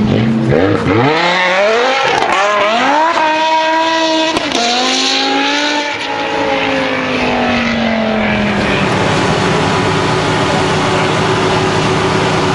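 Mercedes CLK63 AMG's 6.2-litre V8 on a chassis dyno pull: the engine revs climb in several quick rising sweeps through the gears, hold near the top with a brief dip about four and a half seconds in, then fall away as it coasts down. It settles into a steady lower drone for the last few seconds.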